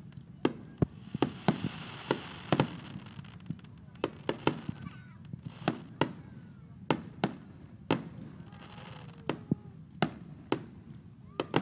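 Aerial firework shells bursting in quick, irregular succession: sharp bangs one or two a second, heard close up, with a hiss between some of the bursts.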